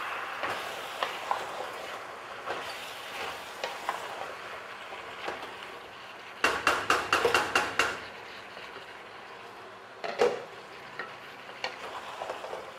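Chicken curry sizzling in oil in a pot, with a spoon knocking and scraping against the pot as it is stirred, in a quick run of strokes about halfway through.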